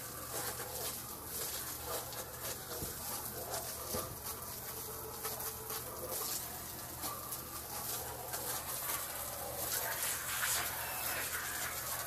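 Water from a garden-hose spray wand splashing steadily into a plastic kiddie pool as it fills.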